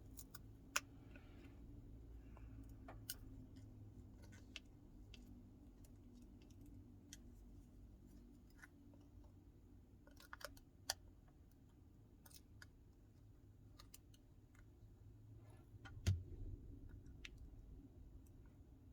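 Faint, scattered small clicks and ticks of a hand tool prying and lifting a part out of a Samsung Galaxy Note 9's frame, over a low steady hum. A few clicks stand out, one near the start, one about eleven seconds in and one about sixteen seconds in.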